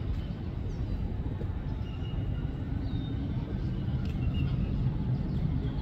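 Steady low outdoor rumble with a few faint, short, high chirps over it.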